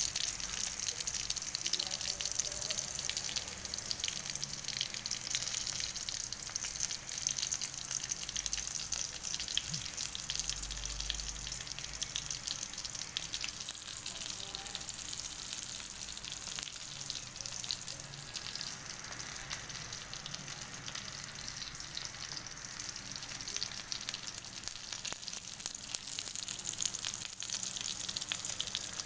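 Whole fish frying in hot oil in a pan: a steady sizzle with dense, fine crackling.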